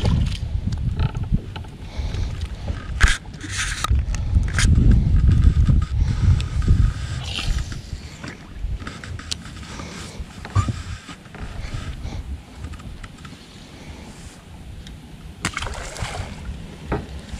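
Low rumbling wind and handling noise on the microphone of an angler in a bass boat, rising and falling, with a few sharp knocks from fishing gear, the loudest about three seconds in.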